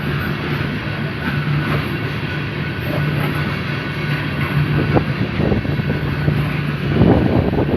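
Coal train hopper cars rolling past: a steady rumble and clatter of steel wheels on rail, with a couple of sharper clanks about five and seven seconds in.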